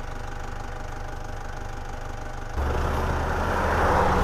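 Vehicle engine idling, then revved up hard about two and a half seconds in and held under load during a recovery pull of a stuck forklift.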